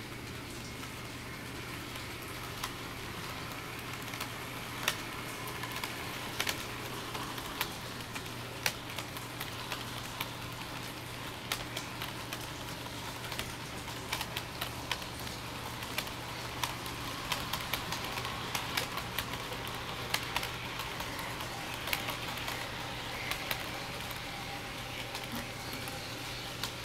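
HO-scale model train of Amtrak Superliner cars rolling on sectional track, its wheels clicking irregularly over the rail joints, over a steady low hum.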